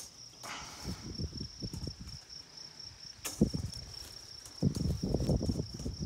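Insects trilling steadily in a high, pulsing tone over irregular rustling and scraping as tangled barbed fence wire is worked by hand. There is a sharp knock about three seconds in and a louder stretch of rustling near five seconds.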